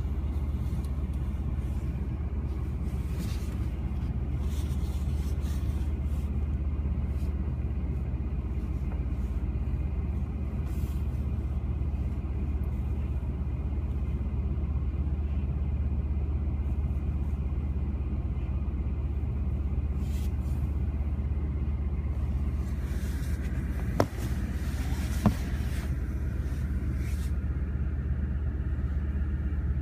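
Steady low engine rumble at idle, heard from inside a parked car, with two sharp clicks about a second apart near the end.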